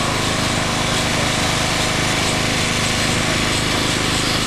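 Grenville steam carriage running past at close range: its steam engine gives a fast, even beat over a steady hiss.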